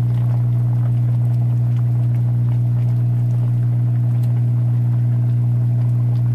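Steady low electric hum from an induction cooktop heating a steel pot of pork bones and broth. Faint scrapes of a plastic spoon stirring in the pot come now and then.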